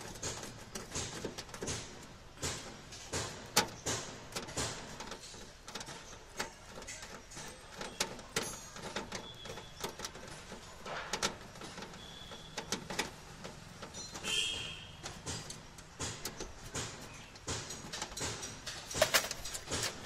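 Irregular clicks, knocks and scrapes of a screwdriver working through the inner steel panel of a Maruti Alto's door, metal tool against sheet metal and lock hardware.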